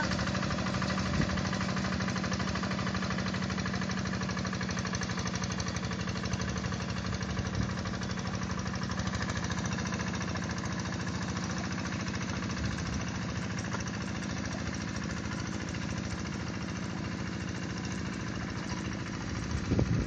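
Single-cylinder diesel engine of a two-wheel hand tractor running steadily under load while plowing a flooded rice paddy, growing slightly fainter as the tractor moves away.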